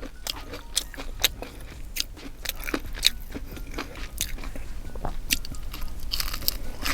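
Close-up chewing of crunchy fried breaded shrimp: irregular crunches and wet mouth clicks.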